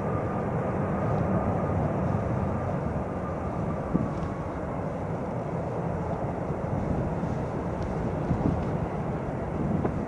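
Airbus A350-900's twin Rolls-Royce Trent XWB turbofans at takeoff thrust as the airliner climbs away, a steady low jet rumble that eases slowly. A faint whine is heard at the start and fades out about two seconds in.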